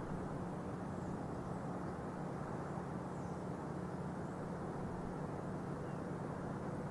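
Steady low engine rumble from ships in the harbor, with a constant low hum, and a few faint high bird chirps over it.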